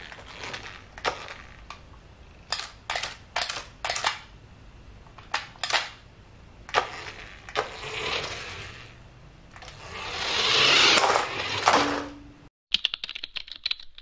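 Small 1:18 two-wheel-drive electric RC truck driving on a hardwood floor: its motor and tyres rise in a whirring hiss twice, loudest about ten seconds in, between sharp clicks and knocks. Near the end, after a brief drop to silence, a quick run of typewriter-like key clicks.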